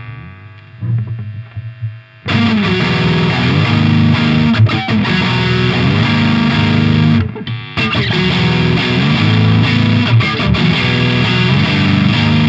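Electric guitar with humbucker pickups played through high-gain distortion: a few softer notes, then loud distorted riffing from about two seconds in, with a short break past the middle. No pickup hum or feedback is heard.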